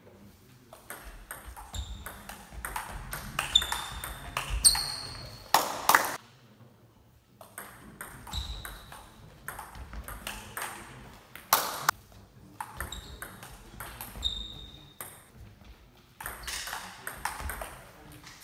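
Table tennis rallies: the ball clicking back and forth off the bats and pinging on the table in quick succession, several points with short pauses between them and a few harder hits.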